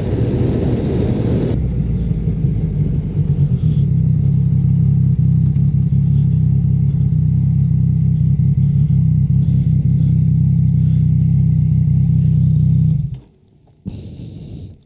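Yamaha Tracer motorcycle engine. Wind rush on the microphone fades about a second and a half in as the bike slows. The engine then runs steadily at low revs and cuts off suddenly about 13 seconds in, switched off as the bike stops.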